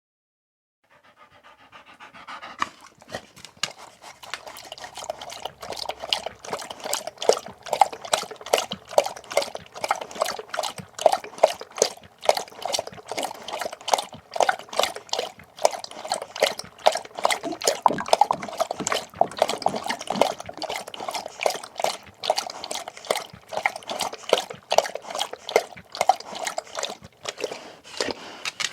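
Dog lapping water, a quick steady run of wet laps about three a second, starting about a second in.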